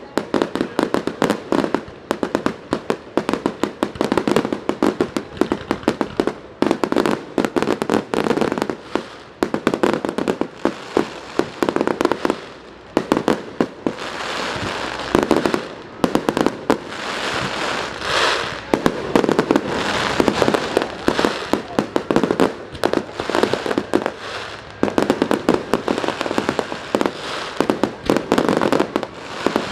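Fireworks display going off in a dense barrage: many sharp bangs in quick succession, thickening into an almost continuous rushing wash of bursts through the middle before breaking back into separate bangs.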